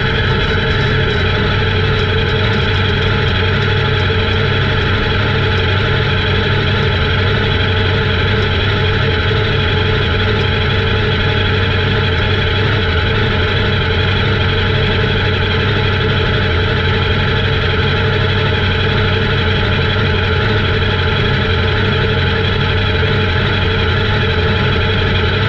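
An engine running steadily at one speed, with a constant low hum and no revving or change in pitch.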